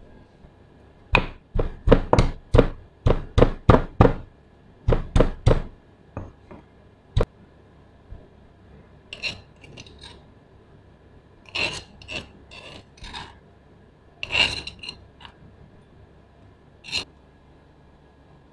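Stone pestle pounding garlic cloves in a granite mortar, about a dozen sharp strikes in quick runs, followed by scattered scrapes and clinks against the stone as the crushed garlic is worked out of the mortar.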